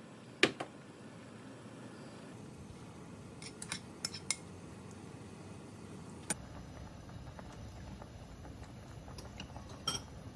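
Kitchen utensils and dishes clinking and tapping a few times, the sharpest knock about half a second in, over a steady low background hiss.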